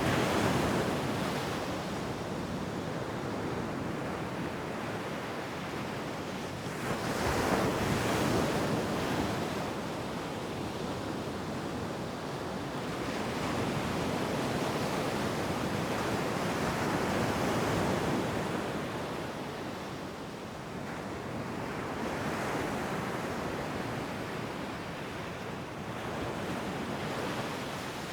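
Ocean surf washing onto a beach, steady noise that swells and ebbs with waves breaking, louder surges near the start, about a quarter of the way in and around the middle. Some wind on the microphone.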